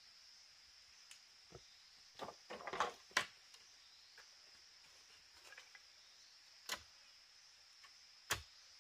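Scattered knocks and clatters of material being handled during shelter building, a cluster about two to three seconds in, one more a little later and a sharp one near the end, over a steady high-pitched hum of forest insects.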